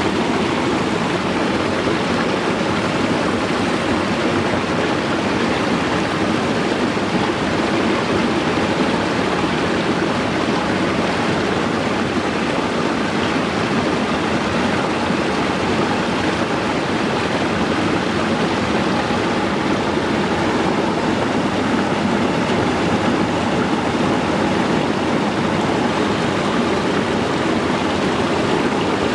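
Running water of a stream: a steady, even rush with no breaks.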